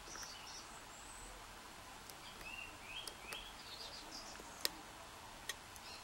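Faint, scattered metallic ticks from a single pin pick and tension wrench working the pins of a padlock's euro-profile pin-tumbler cylinder, the clearest tick about four and a half seconds in. Faint short high chirps sound behind them.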